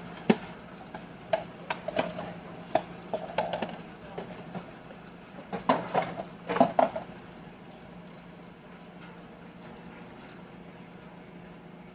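Dishes clinking and knocking against each other and the stainless-steel sink during hand washing-up, a string of sharp clatters over the first seven seconds or so, with the tap running steadily underneath.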